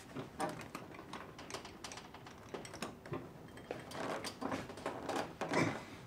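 Irregular light clicks and taps of hand tools and wood blocks being handled and shifted against an engine's cylinder head while it is pried at.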